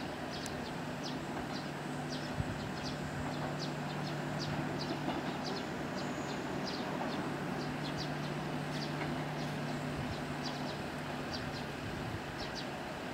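Low steady drone of an approaching diesel railcar engine, fading near the end, with short high chirps repeating a few times a second over it.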